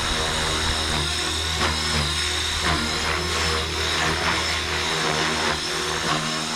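Blade Fusion 360 3S electric RC helicopter in flight, with a steady high motor and gear whine over the low drone of its spinning rotor. The rotor whoosh swells in short pulses through the middle, from blade pitch changes as it is flown in its Stunt 1 mode.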